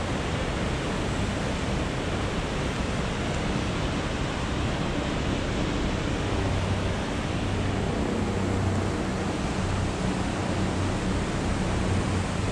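Fast Himalayan mountain river, the Mandakini, rushing over boulders: a steady roar of white water. From about halfway in, a faint low drone of a helicopter passing overhead sits under it.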